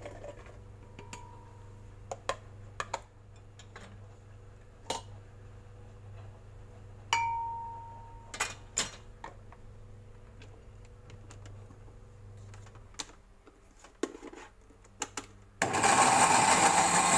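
Scattered clicks and knocks of ingredients and parts being handled at a glass blender jar, then, about 15 seconds in, the countertop electric blender switches on and runs loudly and evenly, chopping garlic, shallots and red chilies into chili paste.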